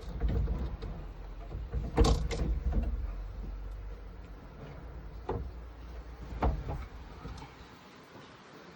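Clunks and clicks from a car door's power window mechanism over a low steady hum, with the loudest cluster of knocks about two seconds in and single knocks later. The hum stops near the end.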